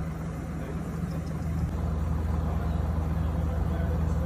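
Through-the-wall air conditioner running: a steady low hum with the rush of air blowing from its vent, growing a little louder over the first couple of seconds.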